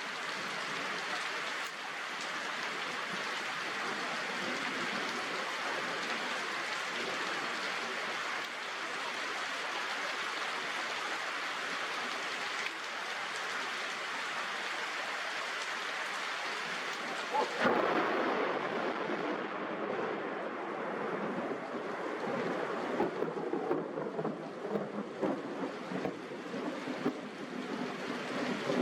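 Heavy rain falling steadily. About two-thirds of the way through there is a sudden knock, and the rain turns to a more uneven patter.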